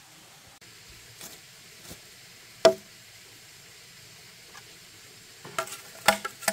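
Sharp knocks of hard objects over a faint steady hiss: one loud clink about two and a half seconds in, then a quick run of clinks and knocks near the end.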